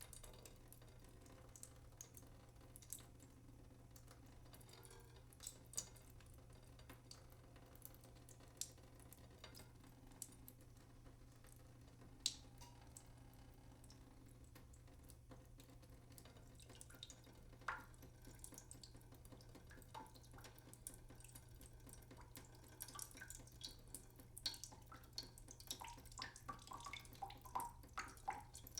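Water dripping from a leaking sink: single drops fall irregularly, a second or more apart, then come faster and closer together near the end, some with a short pitched plink.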